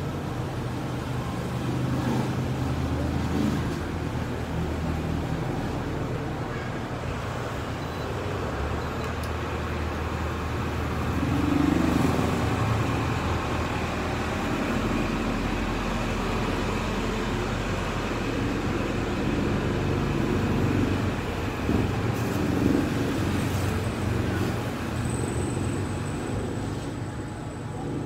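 Steady low background rumble, like road traffic, with irregular swells where paper bags are rustled and handled.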